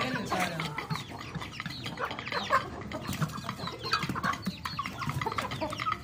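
A group of Aseel chickens clucking, a busy run of short calls from several birds, with scattered light clicks among them.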